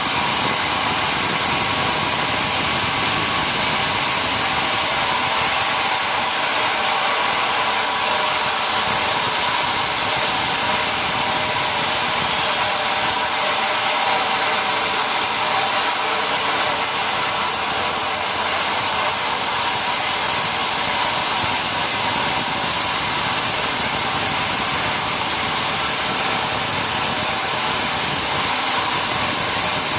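Sawmill machinery running steadily, a loud constant mechanical noise with a thin high-pitched whine over it.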